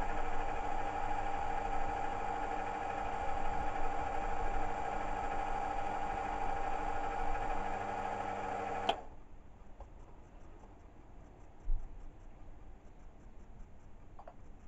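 Small Chinese milling machine spinning a 50 mm face mill fitted with carbide inserts, taking a light 20-thou face cut: a steady machine hum of several tones that cuts off suddenly about nine seconds in. After that only faint sound remains, with one short knock.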